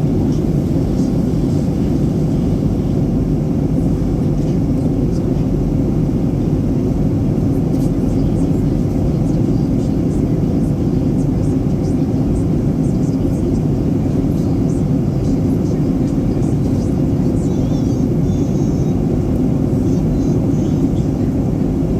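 Steady cabin noise of a Boeing 737-800 in descent: an even low rumble of its CFM56-7B engines and the airflow past the fuselage, unchanging throughout.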